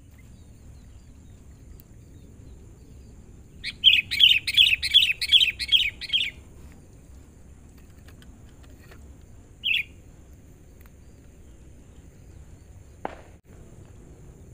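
Caged sooty-headed bulbul (kutilang) decoy singing a quick run of about eight bright, repeated notes, then one short note a few seconds later. A short sharp knock comes near the end.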